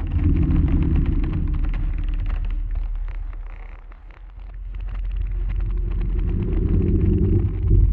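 A deep, loud rumble that fades down about halfway through, swells back up and cuts off suddenly at the end.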